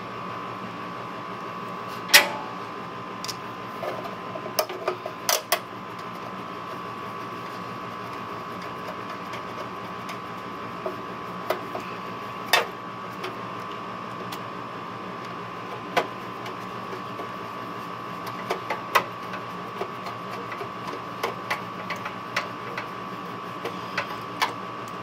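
Scattered clicks and taps of hands working wires, terminals and a screwdriver in an air conditioner's control panel while a hard start kit is wired in, the sharpest click about two seconds in. Under it runs a steady high hum.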